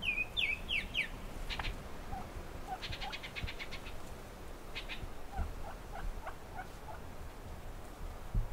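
Birds calling in the field: a few quick high falling chirps and a fast trill, then, about halfway through, a string of short, soft, lower clucks as of a wild turkey hen.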